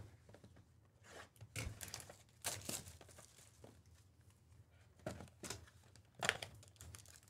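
Cardboard trading-card hobby box being handled and opened: a handful of short, faint rustles and scrapes of the box and its lid.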